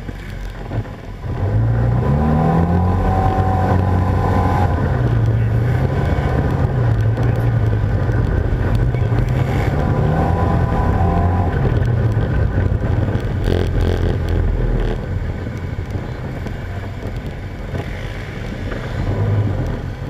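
ATV engine running close to the microphone, revving up and easing off as it rides: the pitch climbs about a second and a half in and again around nine seconds, then settles to a steadier, slightly quieter drone for the last few seconds.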